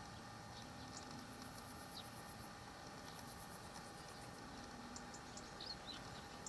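Faint outdoor ambience: a steady low hum under a few short bird chirps, with two runs of fast, high insect-like chirring.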